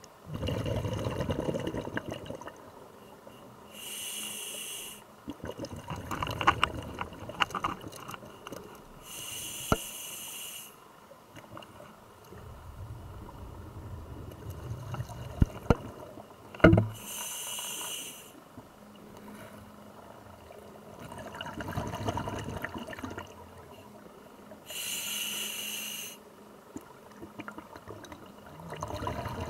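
Scuba diver breathing through a regulator, heard underwater: four slow breaths, each a short hiss of inhalation followed by a longer low rumble of exhaled bubbles. A sharp knock about halfway through.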